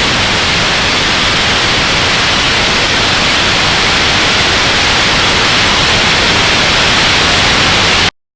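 Loud, steady static hiss like a lost broadcast signal, with no tone or voice in it, cutting off abruptly to dead silence about eight seconds in.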